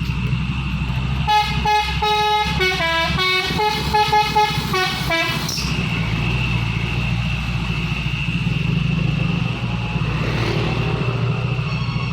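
A dump truck's telolet horn, a multi-tone musical air horn, plays a quick melody of stepping notes for about four seconds, starting about a second in. Under it the truck's engine runs steadily.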